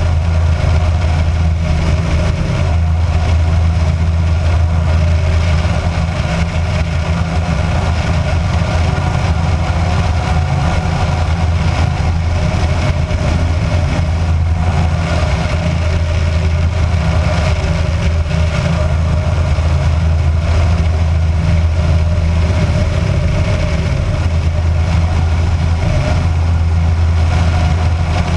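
Kitfox light aircraft's piston engine and propeller running steadily in flight, an even low drone, with air rushing past the outside-mounted camera.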